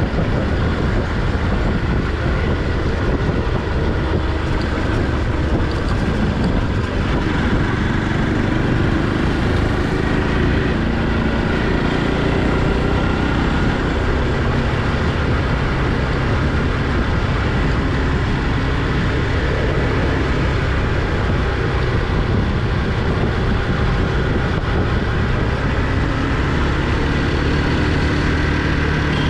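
Motorcycle engine running steadily under way, its pitch drifting gently up and down with the throttle.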